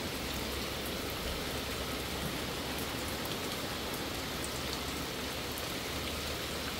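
Heavy tropical rain falling steadily on the sea and on the boat, an even hiss dotted with faint drop ticks.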